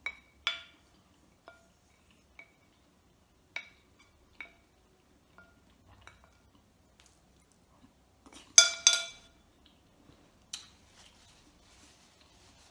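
Wooden spoons tapping and scraping against a bowl: about a dozen separate clinks, each with a short ring from the bowl, the loudest two close together about two thirds of the way through. A faint rustle of a paper napkin follows near the end.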